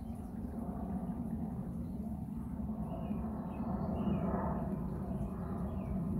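Birds calling in short chirps, several scattered through, over a steady low rumble.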